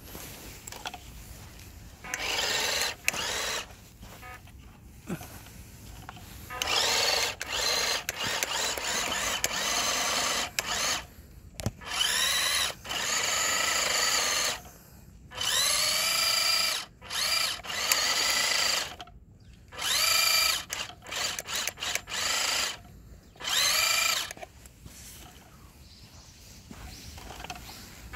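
Electric motor and gearbox of a WPL 1/10 Suzuki Carry RC truck whining in about seven bursts of throttle, the pitch climbing each time the motor spins up. The rear-wheel-drive truck is struggling for grip in snow.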